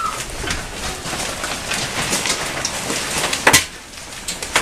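Hailstones and rain pelting the porch and lawn in a dense patter of small clicks, with one loud, sharp crack of a stone striking about three and a half seconds in.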